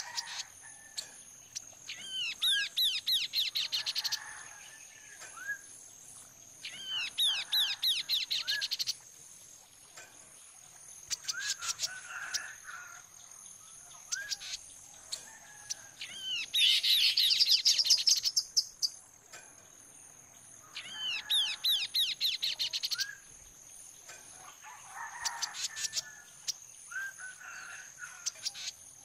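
Chestnut-capped babbler singing: repeated bouts of rapid, rising high notes, each lasting one to two seconds and coming about every four to five seconds, with lower chirps in between. A steady high whine runs underneath.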